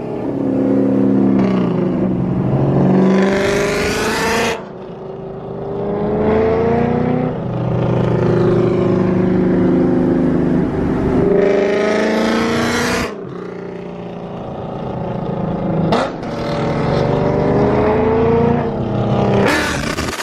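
A car engine accelerating hard through the gears, heard from inside a car. Its pitch climbs over several seconds and drops sharply at each upshift, about four times.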